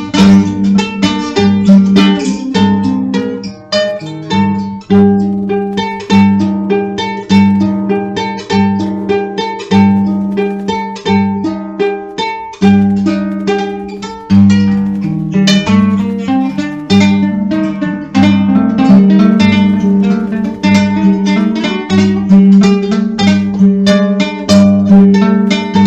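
Acoustic guitar music: quick plucked notes over a sustained low note.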